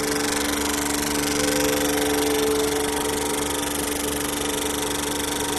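Vacuum pump running with a steady hum, holding the reactor at its designed vacuum degree.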